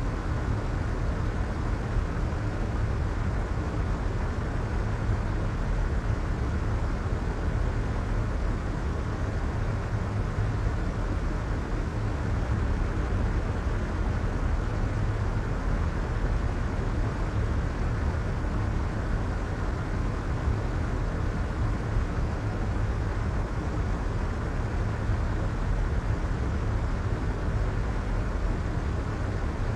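Soft white noise: a steady, unchanging hiss weighted toward the low end, with a deep rumble underneath and muted highs.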